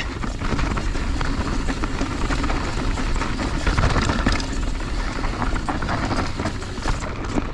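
Mountain bike riding down a dirt trail: tyres rolling over dirt and the bike clattering over bumps, with wind rushing over the microphone. The noise eases off about seven seconds in as the bike slows.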